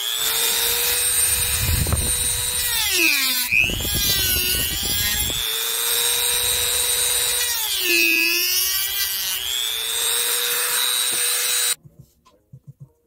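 Handheld rotary tool with a small cutting disc whining at high speed, grinding out the inside of a Hot Wheels toy car's chassis. Its pitch sags twice as the disc bites into the part, with rough grinding noise during the first bite, and it cuts off near the end.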